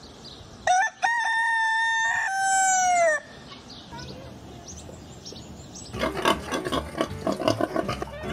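A rooster crowing once: a long cock-a-doodle-doo with a held note and a last note that falls in pitch. Music comes in about six seconds in.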